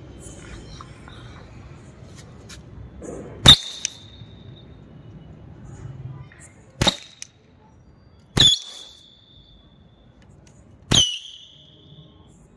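Toy cap-gun revolver firing ring caps to launch small firework rockets: four sharp bangs a few seconds apart, the first the loudest, several followed by a brief high ringing tone.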